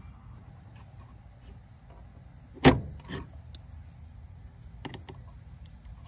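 A sharp snap, then a couple of fainter clicks: a 3-amp glass cartridge fuse being pressed into the clip-type fuse holder on an Atwood RV refrigerator's control board, replacing the blown fuse that kept the fridge from switching to electric.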